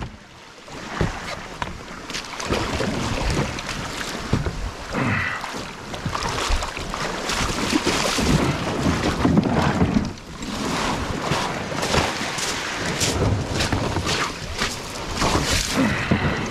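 Small waves breaking and washing over a shingle beach, the pebbles rattling in the surf, with wind buffeting the microphone.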